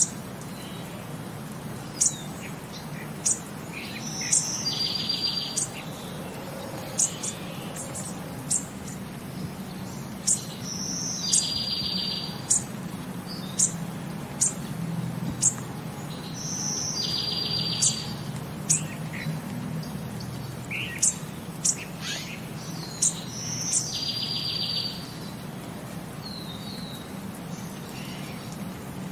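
Birdsong: sharp high chirps, and a buzzy trill about a second long that comes back about every six seconds, over a low steady hum.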